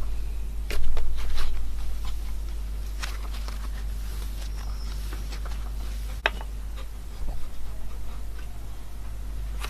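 Cloud slime being squeezed and stretched by hand, giving irregular soft crackles and pops over a steady low electrical hum.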